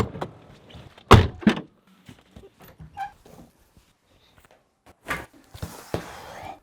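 Two heavy thunks about a second in, then scattered small knocks and clicks, and rustling near the end.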